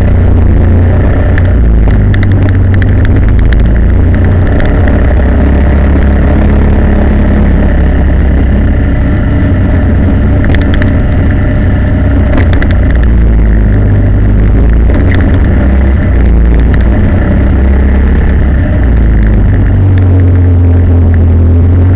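A vehicle on the move: its engine running steadily, with loud low road noise. The engine note shifts slightly in level a few times.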